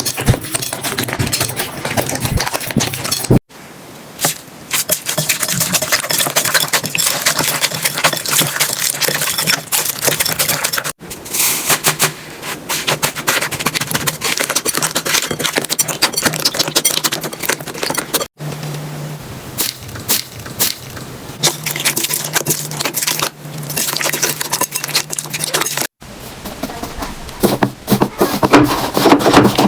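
Slime being squished and worked, with dense crackling and popping clicks. The sound cuts off abruptly four times as one clip gives way to the next.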